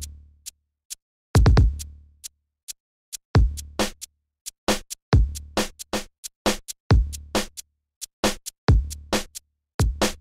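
Electronic drum-machine beat used as background music: deep booming kick drums with long decays, sharp clicking hits in between and brief silent gaps, with no melody.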